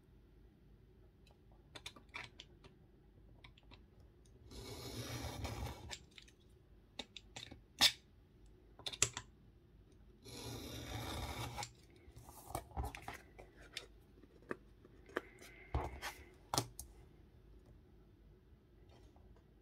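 A paper cutter slicing along paper in two long strokes of about a second and a half each, about five and eleven seconds in, among scattered small clicks and taps of paper and tools being handled.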